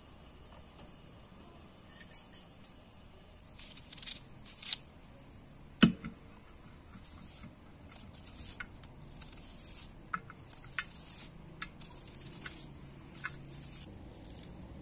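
Knife cutting through a raw onion held in the hand, a run of short crisp cuts, with slices dropping into a metal bowl. One louder knock with a brief ring comes about six seconds in.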